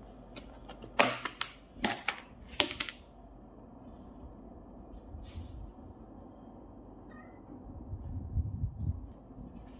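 Clear plastic food container's lid snapping and crackling as it is pried open, a quick run of sharp clicks over a couple of seconds.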